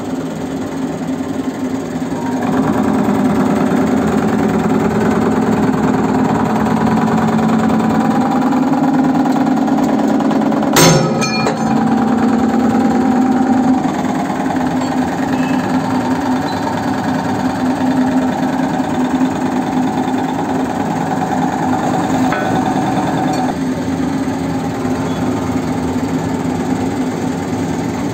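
Hydraulic shearing machine (ironworker) running, its hydraulic pump motor droning steadily. About two seconds in the drone grows louder as the machine works under load, and near the middle a single sharp crack sounds as the shear blade cuts through a steel bar, after which the drone eases back a step.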